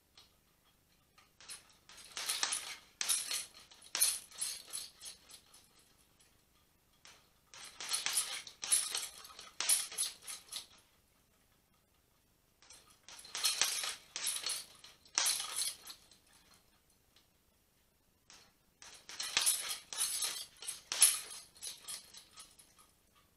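Boxing gloves punching a hanging heavy bag: four bursts of quick hits, each a combination of several punches lasting about three seconds, with short pauses between.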